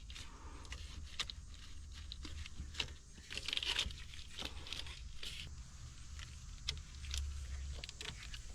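Scattered light clicks, taps and a brief rustle, about three and a half seconds in, from parts and wiring being handled in an engine bay, over a steady low hum.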